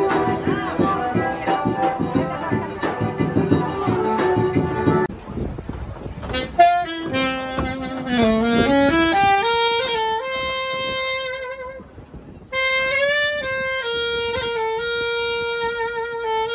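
A forró band plays with zabumba drum and accordion for about the first five seconds, then gives way to a solo saxophone playing a slow melody of long held notes, with a short break about twelve seconds in.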